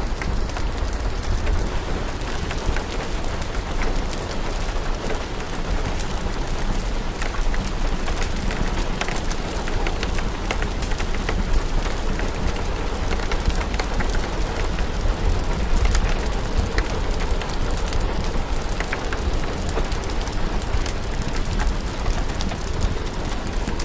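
Steady rain mixed with a crackling fire: an even hiss over a low rumble, dotted throughout with many small, sharp crackles.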